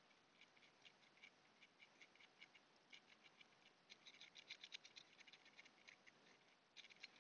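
Faint, irregular scratchy ticks of a thin probe tip scraping and tapping on a surface-mount chip on a circuit board, coming in quicker clusters about four seconds in and again near the end.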